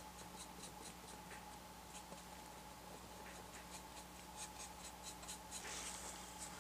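Faint scratching of a paintbrush working paint onto the painting's surface, in quick runs of short strokes several times a second, over a low steady hum.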